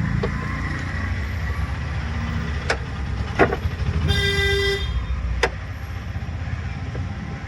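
A car horn sounds once, a short single-pitched honk of under a second about four seconds in, over a steady low rumble of engines and traffic. A few sharp clicks are heard around it.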